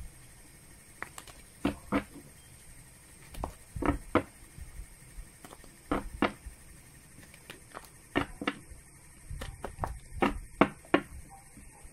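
Deck of tarot cards being shuffled by hand: short, sharp taps and clicks as the cards knock together, often in pairs, every couple of seconds.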